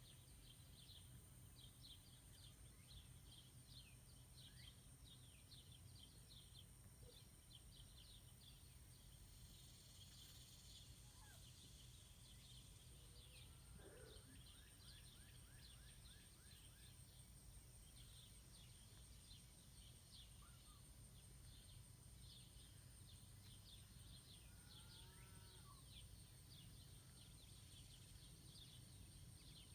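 Faint outdoor ambience of small birds chirping continuously, with a steady high-pitched tone running underneath and a few lower calls now and then.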